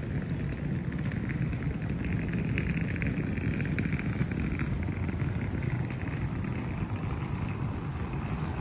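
Rainy street ambience: a steady wash of rain and wet-street noise, with a higher hiss that swells and fades again around the middle.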